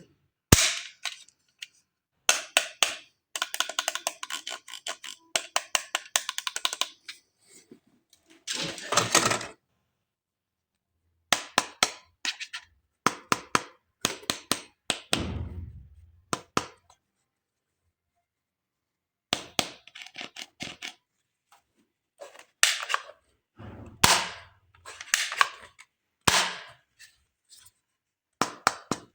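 Plastic toys and packaging being handled: bursts of sharp clicks, taps and crinkling rustles, broken by silent gaps.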